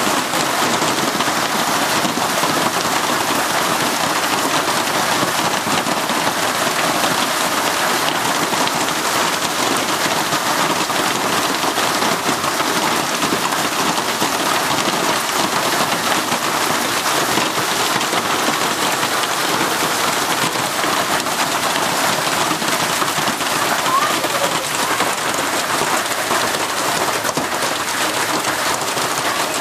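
Hail and heavy rain pelting the lawn and the roof overhead during a hailstorm: a steady, dense hiss without a break.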